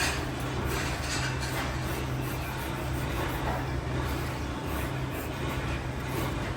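Steady low hum of running workshop machinery over a constant background hiss, with a few faint clatters near the start.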